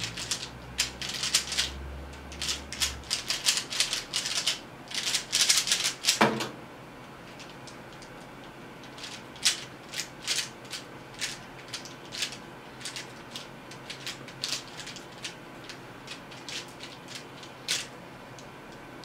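DaYan ZhanChi 3x3 speedcube turned fast in a rapid clatter of clicks as a solve finishes, ending about six seconds in with one sharp knock as the computer keyboard's spacebar is struck to stop the timer. After that the cube clicks through slower, spaced single turns.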